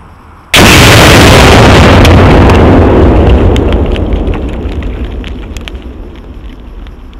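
About 5 lb of Tannerite packed in a deer feeder detonating when a rifle bullet hits it: a sudden blast about half a second in, so loud that the recording stays flattened at full level for over two seconds. A low rumble follows and fades over several seconds, with scattered crackles and pops.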